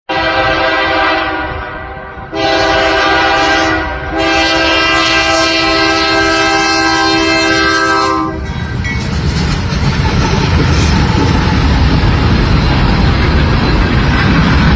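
Indian Railways locomotive horn sounding three blasts, the last one long, followed by the steady rumble and rattle of a train passing close by.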